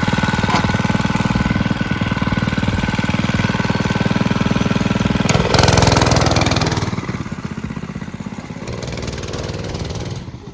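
A 105cc mini bike's small engine running steadily. About halfway through it gets louder for a second or so, as if revved, then runs at a lower level.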